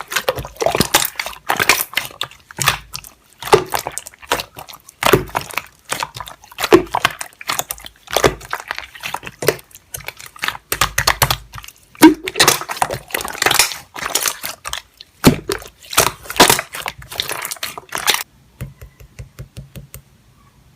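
Slime being played with by hand: squeezed, pressed and stretched, giving a dense irregular run of crackles, pops and squishes that stops about eighteen seconds in, followed by a few faint ticks.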